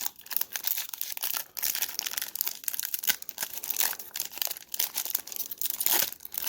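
Wrapper of a hockey trading-card pack being torn and crinkled by hand, an irregular crackling rustle with small snaps. The pack is stubborn to open.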